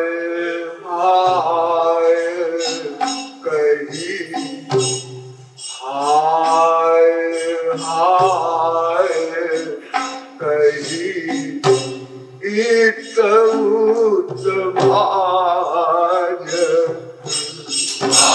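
A man's voice singing a devotional Hindi pada in long, slow phrases, holding notes with a wavering vibrato.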